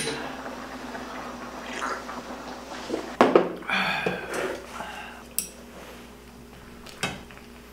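Small soju glasses clinking together in a toast, followed by a few sharp knocks and clinks of glasses and chopsticks against dishes and a metal pot as noodles are served.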